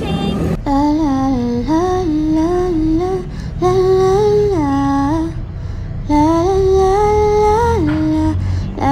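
Music: a slow hummed melody of held notes stepping up and down, over a steady low accompaniment.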